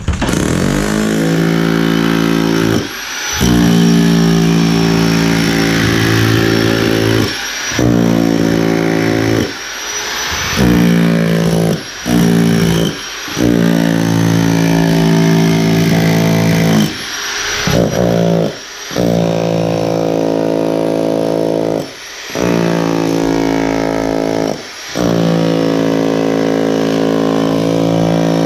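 Harbor Freight SDS rotary hammer with a chisel bit hammering into wooden floor framing. It runs in bursts, and the trigger is let off briefly about nine times.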